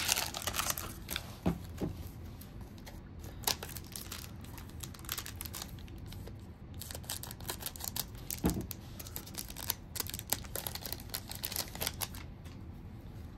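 Pokémon booster pack wrapper crinkling and tearing as it is ripped open and handled, with irregular sharp crackles that come thickest in the second half.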